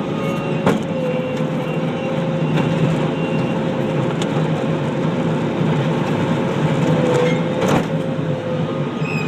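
Skid steer loader running steadily with a constant whine over its engine noise, with a couple of sharp knocks, one under a second in and one near the end.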